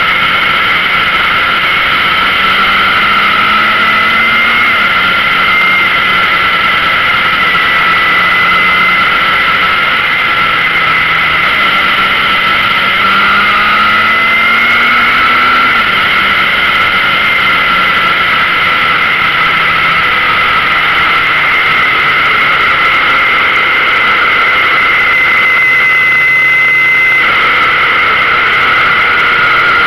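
Yamaha XJR air-cooled inline-four motorcycle engine under way, heard from the bike itself, with its note climbing a couple of times and dropping in steps as gears change. Steady wind and road rush lie over it.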